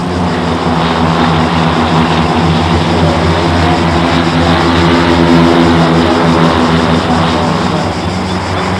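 Small propeller training airplane passing overhead, its engine drone growing louder to a peak about five seconds in, then easing off.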